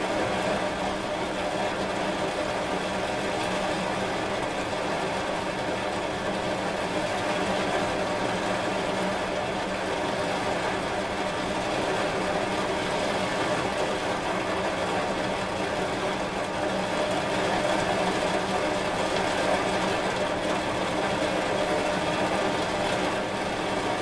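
Steady rain: a continuous, even hiss of falling rain with a faint steady hum underneath.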